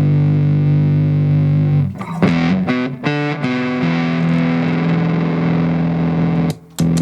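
Electric guitar played through a transistor fuzz pedal. A long sustained fuzzed note gives way to a few quick notes and another long held note, which cuts off briefly near the end.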